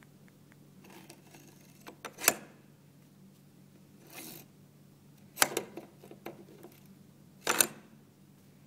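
A plastic TurningPoint voting handset being slid and clipped into a plastic holder under a desk edge: three sharp plastic clacks spaced two to three seconds apart, with a short scrape between the first two.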